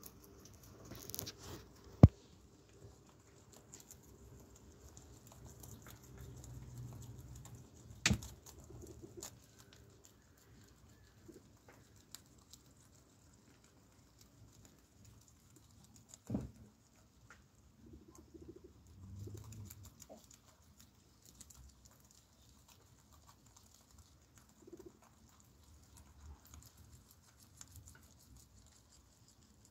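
A group of guinea pigs chewing and rustling through a pile of kale leaves on a towel, a soft patter of small crunching and shuffling sounds. Three sharp knocks break in, the loudest about two seconds in.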